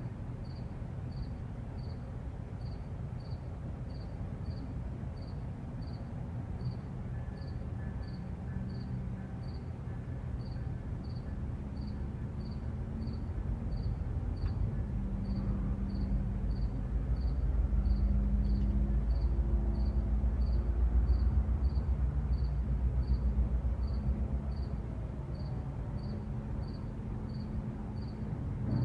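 A cricket chirping steadily, about one and a half chirps a second, over a low traffic rumble. Midway a passing vehicle swells into a louder low rumble and hum, then fades away.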